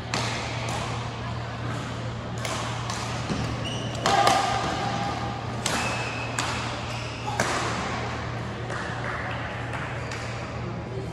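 Badminton hall ambience: sharp racket-on-shuttlecock hits from nearby courts at irregular intervals and a few short squeaks, the loudest about four seconds in, over a murmur of voices and a steady low hum, echoing in the large hall.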